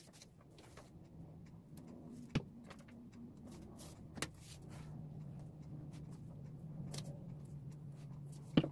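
Hands handling photos and a glue stick on a desk: a few sharp clicks and taps, the loudest near the end, over a faint steady low hum.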